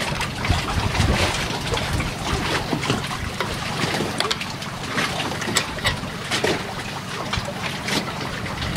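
Wind on the microphone over open water with water sounds, and scattered short clicks and taps as hands work a small metal fitting.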